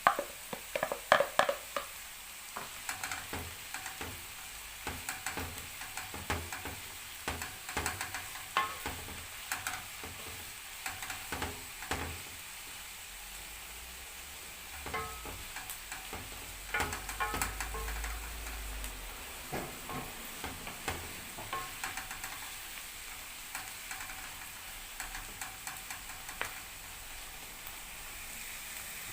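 Chopped onion, bell peppers and spinach sizzling in a pan while being stirred, with a spoon clicking and scraping against the pan many times, loudest in the first couple of seconds.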